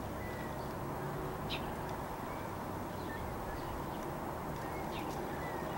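Outdoor ambience: a steady hiss with two brief, high bird chirps, one about a second and a half in and another about five seconds in.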